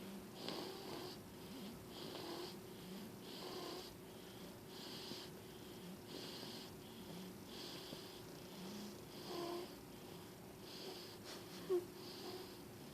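Sleeping baby snoring, high hissy breaths coming about once a second, with one short louder sound near the end.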